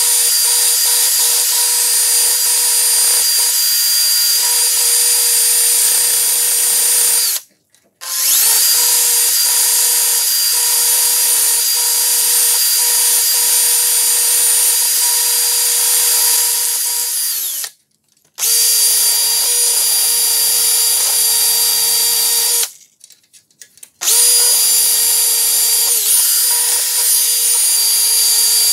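High-speed rotary tool with a brass wire wheel whining steadily as it brushes rust off a steel vernier caliper. It stops and starts again three times, winding down once about 17 seconds in.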